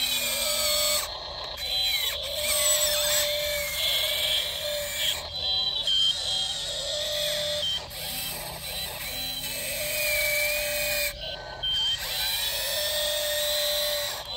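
Small electric motors of a radio-controlled model excavator whining, their pitch sliding up and down as they speed up and slow, with several short stops.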